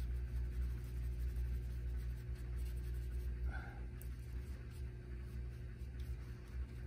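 Soft scratching of a paintbrush working oil paint on a linen panel, over a steady low hum. A brief faint high note comes about three and a half seconds in.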